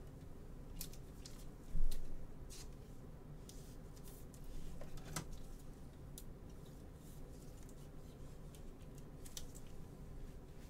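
Gloved hands handling trading cards and a clear plastic card holder: scattered light clicks and taps, with one louder thump about two seconds in.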